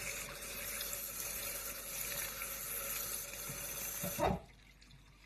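Tap water running steadily onto anchovies in a plastic colander as they are rinsed by hand to wash off their scales. About four seconds in there is a short knock and the water stops abruptly.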